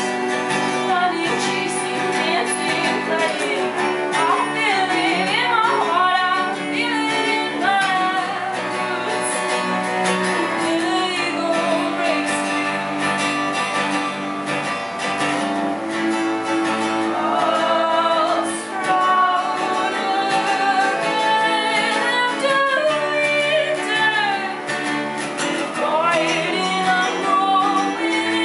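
Live acoustic music: an acoustic guitar and a bowed viola da gamba played together, with a voice singing over them.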